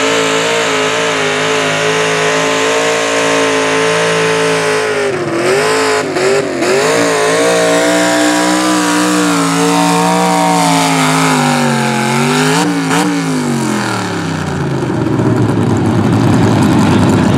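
Pro stock mini pulling truck's engine running at full throttle under the load of a pulling sled. The pitch wavers as the truck bounces about five seconds in, then sags steadily as the engine is pulled down, rises briefly and drops away near the end when the throttle is let off. A steady rush of noise follows.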